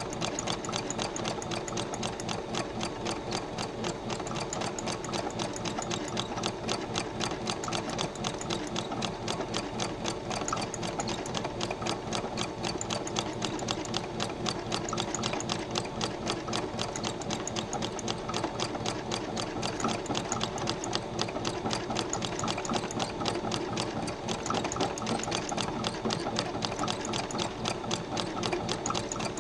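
Electric sewing machine running steadily at speed, a fast, even clatter of needle strokes as it stitches thread painting into needlepoint canvas.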